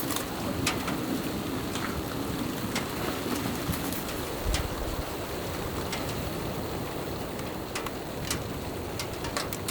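Steady hiss of precipitation falling on a tent, with scattered sharp ticks.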